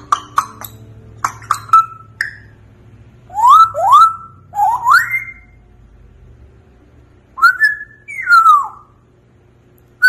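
African grey parrot whistling: a quick run of sharp clicks, then a series of short rising whistled notes, and near the end a whistle that rises and then falls.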